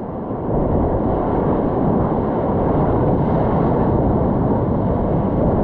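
Steady, low, muffled rush of broken surf foaming around a kayak as it rides a wave in to shore, growing a little louder about half a second in.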